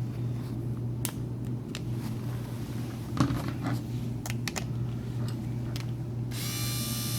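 A few handling clicks, then about six seconds in Andis Ultra Edge clippers, fitted with a new blade drive and hinge, switch on and run with a steady electric buzz. The motor fan works, though the old clippers run kind of loud.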